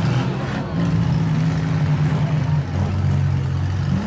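Demolition derby cars' engines running loud and steady in the arena, their pitch shifting as drivers rev.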